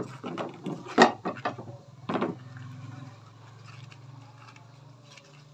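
Crisp raw cabbage leaves snapping and crunching as hands break them apart, a quick run of cracks in the first two seconds, the loudest about a second in.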